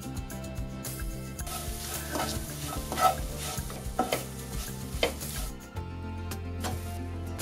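A wooden spatula stirring and scraping sugar-sprinkled, gochujang-glazed dried anchovies around a coated frying pan, with a light sizzle, in several strokes that stop about five and a half seconds in. Steady background music underneath.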